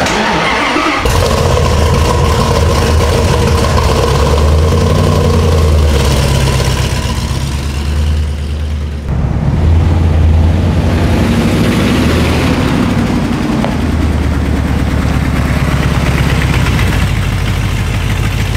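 Dodge Ram 1500's 5.2-litre Magnum V8 starting about a second in, then running and revving, its note dipping and rising again about halfway through.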